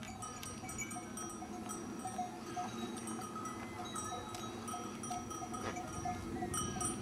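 Several livestock bells clinking irregularly and continuously, with scattered short ringing notes.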